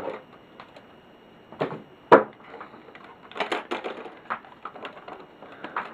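Handling noise of a hard plastic RC truck body shell being lifted off the chassis and turned over: a few separate knocks and clicks, the loudest about two seconds in, then a quick cluster of clicks about halfway through.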